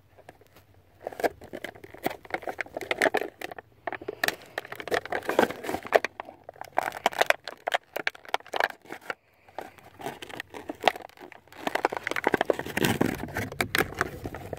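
Toy packaging crinkling and crackling in irregular bursts, with many small clicks and taps, as a small toy sword piece is worked free of it by hand.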